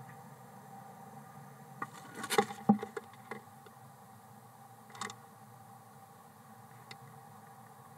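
Barn owl's talons scraping and knocking on the wooden nest box as it moves through to the entrance hole: a cluster of scrapes and knocks about two seconds in, then a single knock about five seconds in.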